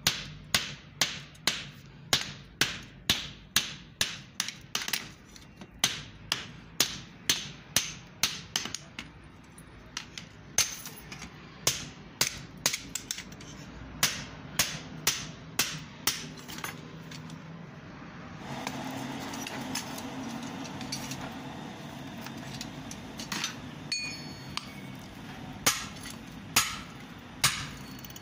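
Hand hammer striking hot steel on an anvil while an axe head is forged: a steady run of blows at about two to three a second, then slower, spaced blows. About two-thirds of the way in there are several seconds of steady rushing noise, then a few more strikes, some with a short metallic ring.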